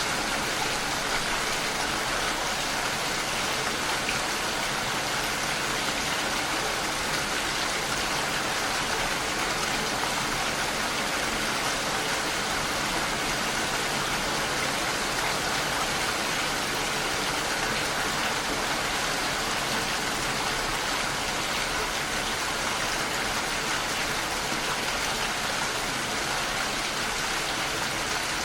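Steady rain falling, an even hiss that holds level without change.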